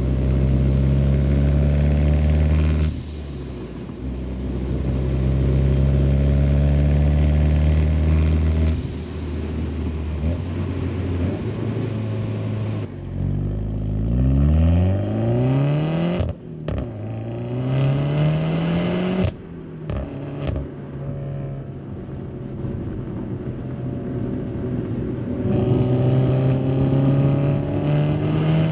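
Peugeot 308 GTi's 1.6 turbo petrol four-cylinder engine and exhaust under acceleration, its pitch rising, dropping away and climbing again several times. It is heard first close to the exhaust tip, then, about halfway through, more muffled from inside the cabin.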